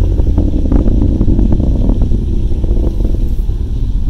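Low rumble of a distant Atlas V rocket climbing after launch, with irregular crackling over it.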